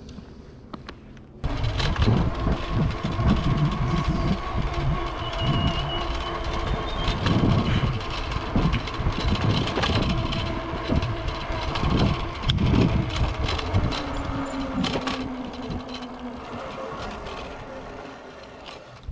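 Wind buffeting the camera's microphone on a moving electric bike, with a steady whine from the bike's motor underneath. It starts abruptly about a second and a half in and eases off toward the end.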